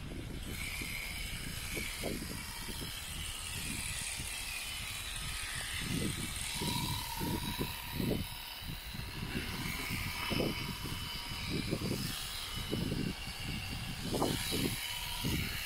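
Electric shearing handpiece running steadily as it cuts through alpaca fleece, with irregular low rumbles underneath.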